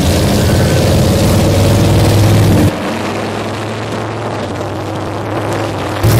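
Engines of off-road race jeeps and buggies running loud and steady. A little under three seconds in the sound drops suddenly to a quieter engine drone, then turns loud again near the end.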